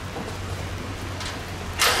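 Steady rain falling on the street under a low hum. Near the end comes a short, loud clatter, the steel shipping crate being worked on as it is taken apart.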